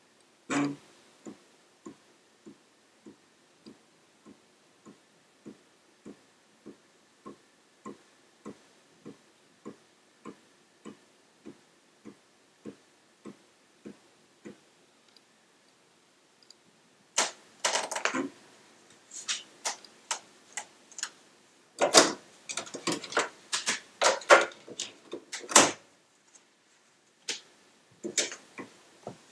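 Amiga 1000's 3.5-inch floppy drive during boot. A loud click comes about half a second in, then steady ticking about every 0.6 s, the drive checking for a disk. After a pause, from about 17 seconds, come loud irregular bursts of head stepping and seeking as a disk is read, with a few more short bursts near the end.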